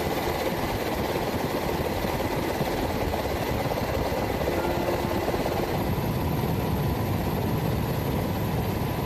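Steady drone of a helicopter's engine and rotor, even in level and unbroken.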